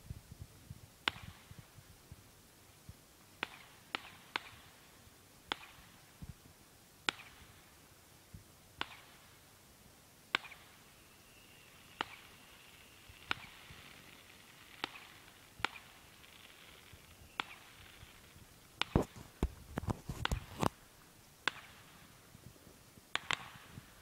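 Distant fireworks going off: irregular sharp bangs with a short echo, about one every second or two, and a quick cluster of several louder bangs in the last part.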